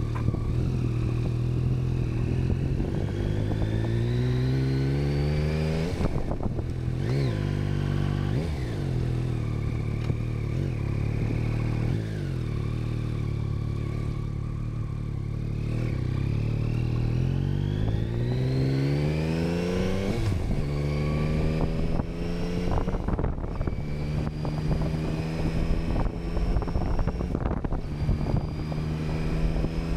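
Yamaha Tracer 9 GT's 890 cc inline-three engine under way. Twice it accelerates, the pitch rising steeply and dropping back at a gear change, then it runs steadily at cruising speed.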